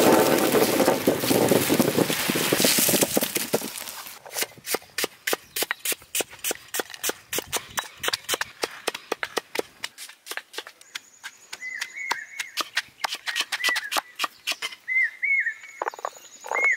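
Shallots tumbling and rattling onto a steel plate, then garlic cloves pounded in a stone mortar with a stone pestle: a long run of quick sharp knocks. Birds chirp near the end.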